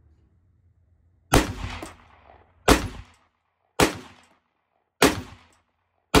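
Five rifle shots from a scoped Ruger 5.56 rifle, fired in quick succession a little over a second apart, each followed by a short echo that dies away.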